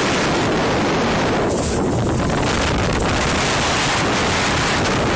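Wind buffeting the microphone on a small boat under way, over the rush of water against the hull, loud and steady.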